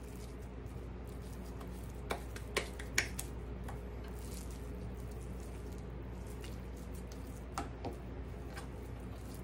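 Raw ground beef being pressed and shaped into patties by hand: quiet squishing of the meat, with a few soft pats about two to three seconds in and two more near the end.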